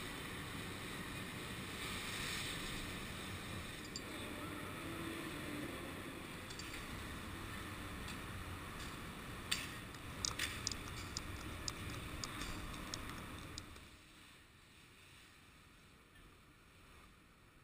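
Snowboard sliding over the snow of an indoor slope, heard as a steady rushing scrape, with a quick run of sharp clicks and knocks about halfway through; it turns much quieter for the last few seconds.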